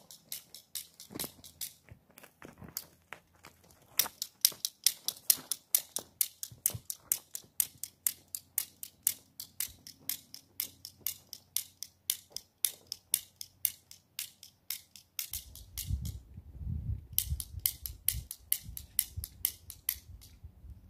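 Toy cap gun's trigger clicked over and over without firing any caps: sharp, high-pitched clicks at about five a second. The clicking breaks off briefly about three-quarters of the way through, then resumes over a low rumble.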